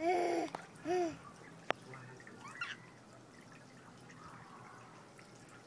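Two short, high vocal calls about a second apart, each rising and then falling in pitch, followed by a single sharp click.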